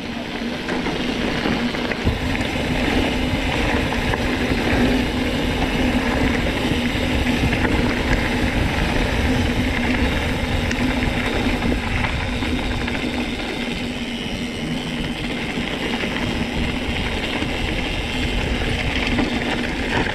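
Car driving along: a steady engine drone with continuous rumbling road noise.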